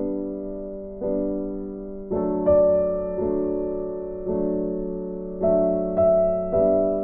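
Soft solo piano background music, a new chord struck every second or so, each ringing and fading out.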